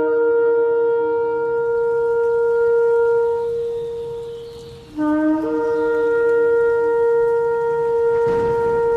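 Shofar (ram's horn) sounded in long blasts, each starting on a lower note and breaking up to a higher held note. The first blast fades out a little before halfway, and a second long blast begins about five seconds in.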